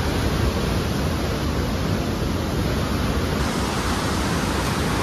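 Steady rush of the flooded Koshi River churning past the barrage gate piers.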